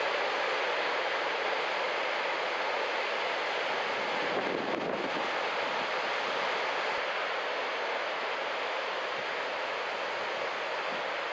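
Steady rush of ocean surf breaking on a beach, with wind buffeting the microphone.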